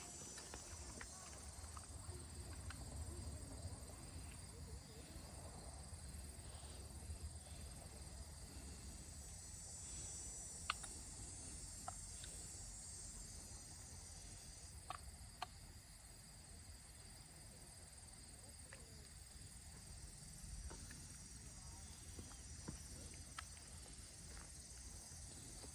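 Faint, steady high chirring of insects such as crickets, with a few sharp clicks.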